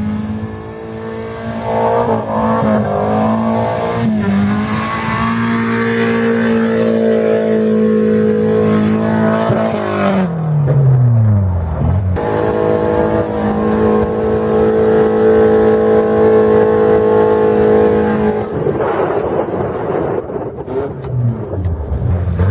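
Volvo drift car engine held at steady high revs while sliding on ice. Its pitch drops steeply about ten seconds in, then the engine is held high and steady again before falling away near the end.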